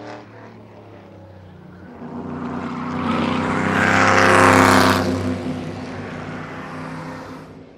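Car pass-by sound effect: a car engine approaches, is loudest about halfway through, then fades away.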